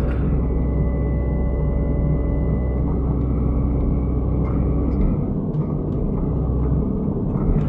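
Excavator's diesel engine running steadily under work, with a few short knocks. The deepest part of the rumble eases off briefly past the middle.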